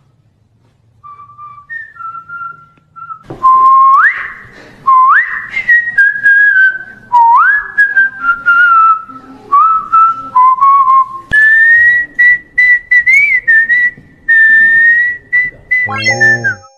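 A person whistling a melody: a few soft short notes, then loud whistles that swoop sharply upward, then long, higher held notes with slight wavers.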